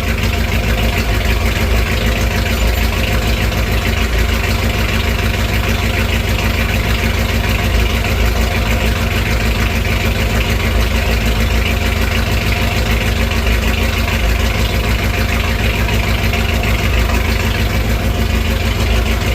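Chevrolet 350 small-block V8 idling steadily through an exhaust with no muffler. The vacuum leak is cured, but the engine still shakes, and the owner suspects an exhaust leak on the passenger side.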